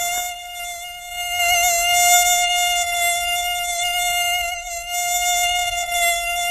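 Mosquito in flight: the high, steady whine of its beating wings, one buzzing tone with many overtones that wavers slightly in pitch.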